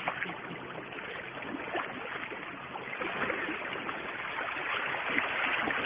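Sea water lapping and washing against shore rocks, a steady hiss of small waves with faint splashing ticks.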